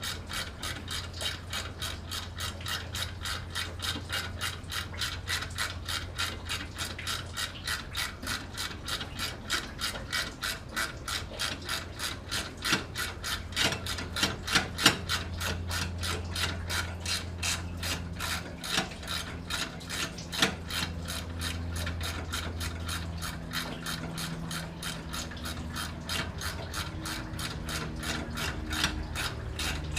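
Ratchet wrench clicking steadily, about four clicks a second, as bolts are turned to remove the alternator. A low steady hum runs underneath.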